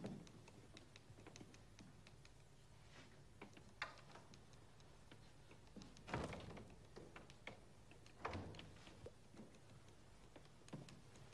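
Quiet room with a few soft knocks and thumps from a panelled double door: it is opened at the start and shut about six seconds in, which is the loudest thump. Quieter knocks in between are footsteps and handling.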